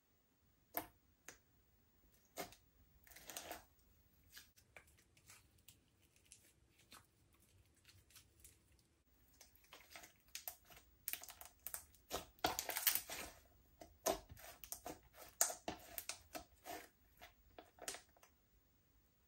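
Slime being kneaded and squeezed by hand, giving off irregular small clicks and pops, sparse at first and coming thick and fast through the second half.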